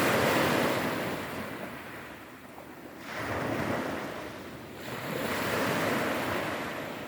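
Sea surf washing onto the shore in repeated swells: three surges a couple of seconds apart, each rising and falling away.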